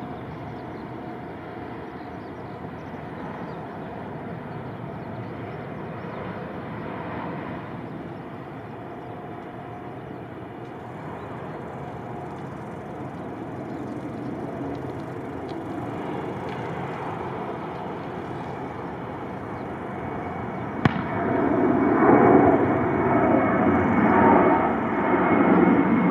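Airliner engine noise: a steady distant rumble that becomes much louder and rougher from about twenty seconds in, just after a single sharp knock.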